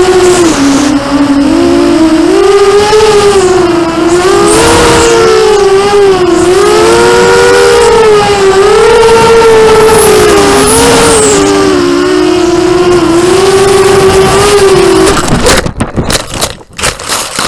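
A racing quadcopter's four 2204 2300 kV brushless motors whining, heard from the camera on the quad, the pitch rising and falling as the throttle changes. About fifteen seconds in the whine stops and a few knocks and rustles follow as the quad comes down in the grass.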